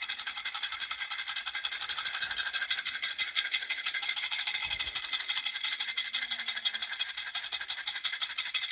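Baby rattle shaken steadily in a fast, even rhythm, a bright continuous rattling.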